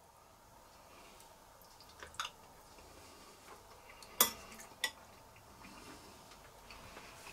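Cutlery clicking against a dish of orzotto a few times as a spoonful is taken to taste: two light clicks about two seconds in, then a sharper clink a little after four seconds and another half a second later.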